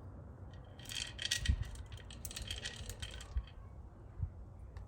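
Small metal engine parts clinking and rattling as they are handled and set down during a top-end teardown, in two short flurries, with a few dull knocks.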